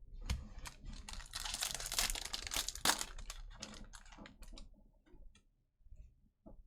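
A Panini Mosaic Football hobby pack wrapper being crinkled and torn open, a dense crackle lasting about four seconds, then a few scattered clicks as the cards are handled.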